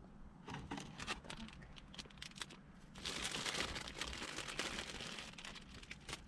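Thin clear plastic pastry wrapper crinkling and crackling as it is handled and pulled off a pastry: scattered crackles at first, then a denser, louder burst of crinkling about halfway through.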